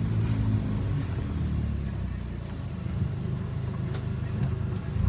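Car driving slowly: its engine running with a low, steady hum, along with road noise.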